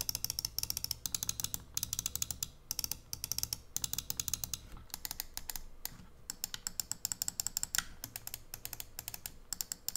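Razer Viper Mini gaming mouse's main buttons clicked rapidly in bursts of several clicks a second, with short pauses between bursts. These are its budget switches, which the reviewer finds mediocre.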